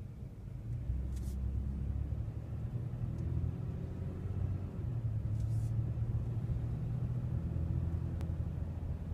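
Low, steady rumble of a car's engine and road noise heard from inside the moving car, its pitch shifting slightly with speed; it cuts off suddenly at the end.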